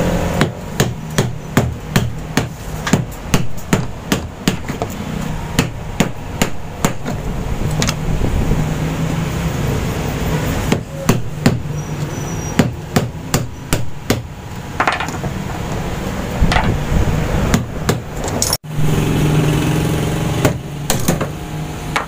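Hammer blows on a screwdriver held against the screws of a washing machine's gearcase, breaking screws that are too tight to unscrew. Sharp metal strikes come about two to three a second in runs, with pauses between.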